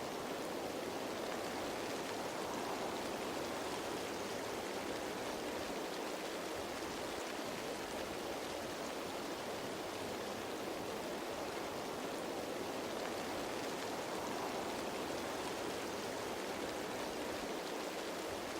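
Steady rain falling on leaves, an even hiss of many small drops with no single drop standing out.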